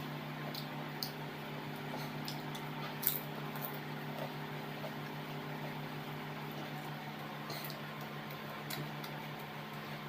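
Close-miked eating sounds: scattered short wet clicks and smacks of chewing, the loudest about three seconds in, over a steady low hum.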